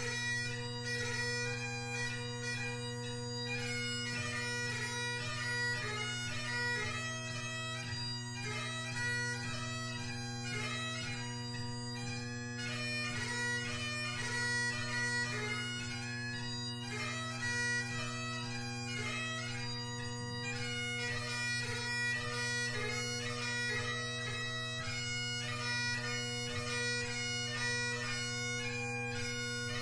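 Great Highland bagpipe playing a tune: a steady bass and tenor drone sounds under a chanter melody that changes note quickly. The pipes are McCallum drones with a G1 Blackwood chanter.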